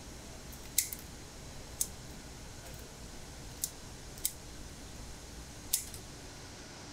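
Steel kitchen scissors snipping through a mud crab as it is cleaned: five crisp, sharp snips at uneven intervals, over a faint low steady hum.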